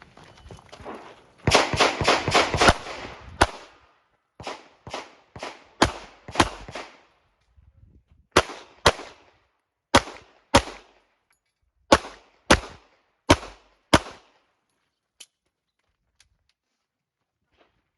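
Handgun shots fired during a USPSA stage. A fast string of about eight shots comes near the start, followed by pairs of shots about half a second apart and a last single shot.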